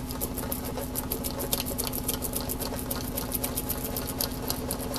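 Tire repair stitcher working a one-piece repair unit down against the tire's inner liner: a steady mechanical hum with a fast even rhythm and scattered sharp clicks, pressing the repair on to bond it and drive out trapped air.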